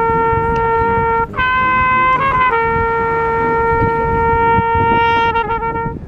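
Trumpet playing long held notes, with a short run of quick notes about two seconds in and a note that wavers near the end.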